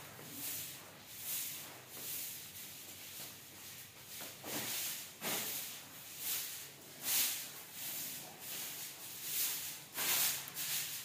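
Short-handled dried-grass broom sweeping a marble tile floor: quick, repeated swishes, about two a second.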